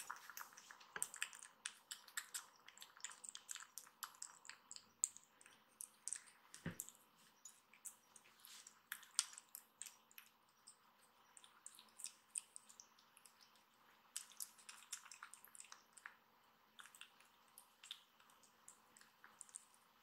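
Kitten eating wet weaning food from a bowl: faint, irregular wet smacking and licking clicks, several a second, with one soft thump about seven seconds in.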